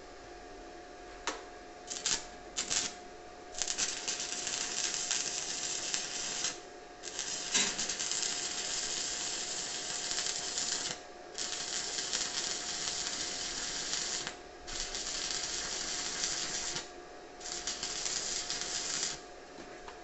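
Stick (MMA) arc welding with a Daniu MINI MMA-200 inverter welder, a 2 mm electrode on 2 mm steel sheet at reduced current. The arc is struck in three short bursts, then crackles and hisses in five runs of two to four seconds with brief breaks between, laying the bead stop-start rather than as one continuous run.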